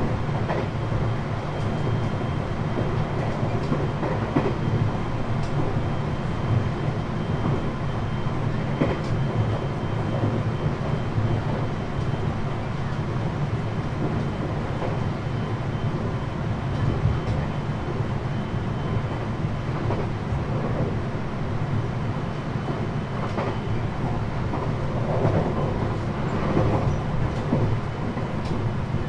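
Running sound of a 521 series electric multiple unit heard inside the motor car KuMoHa 521-6: a steady low rumble of wheels on rail with scattered clicks over rail joints. A faint high steady whine runs through the first half.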